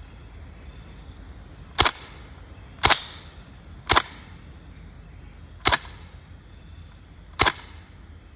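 Five shots from a CO2-powered BB gun, sharp cracks spaced about one to two seconds apart.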